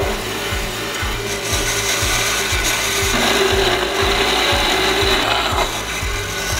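Homemade vertical bandsaw, driven by a salvaged powerchair motor, running with its blade cutting through a block. The cutting noise rises about a second in and eases off near the end.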